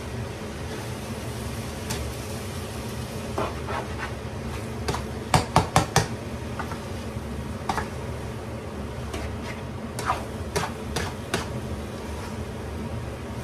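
Rice vermicelli being stir-fried in a wok: a black utensil scrapes and knocks against the pan while the noodles are turned, including a quick run of four knocks about five seconds in. A steady low rushing noise runs underneath.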